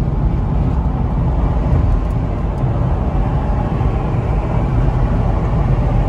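Steady low rumble of tyre, road and engine noise inside a car's cabin while driving at freeway speed.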